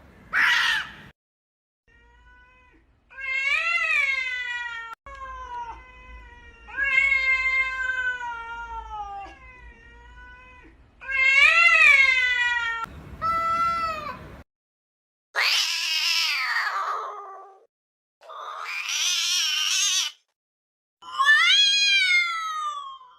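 Cats fighting: long, wavering, drawn-out yowls, then two harsh screeching hisses a little past the middle, and another falling yowl near the end.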